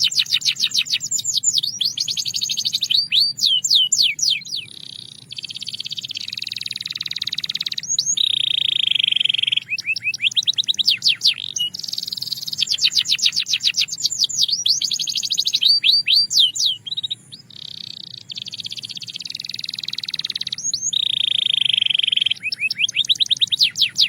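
Belgian canary singing a continuous song of fast trills and rolls, broken by sweeping notes and two longer held tones about eight and twenty-one seconds in. The same run of phrases comes round twice.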